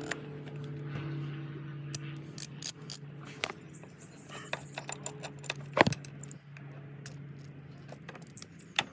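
Small metal clicks and clinks of bolts and hand tools being handled while a new ignition coil is fitted in the engine bay, with one sharper clack a bit under six seconds in. A faint steady hum runs underneath and fades near the end.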